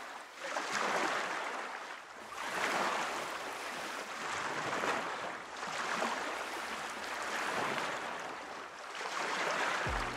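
Rushing water of a mountain trout stream, a steady hiss that swells and eases every couple of seconds.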